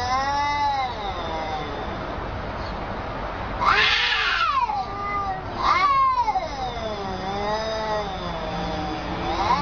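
Two cats caterwauling at each other in a face-off: a series of long, wavering yowls that rise and fall in pitch, the sharpest about four and six seconds in. It is the threatening yowling of a standoff between two cats.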